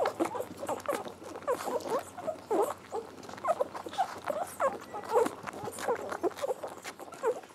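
Standard schnauzer puppies suckling from bottles: short high squeaks and little grunts, about one or two a second, over quick wet sucking clicks.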